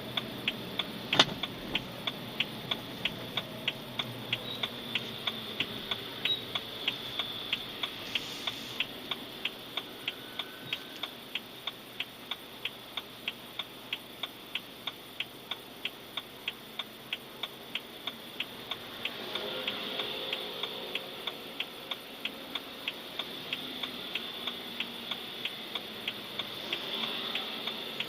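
Steady, fast ticking from a BMW, about three sharp clicks a second over a low running background, with one louder click about a second in. This is the abnormal noise that the owner puts down to the car's 喇叭 (horn or speaker).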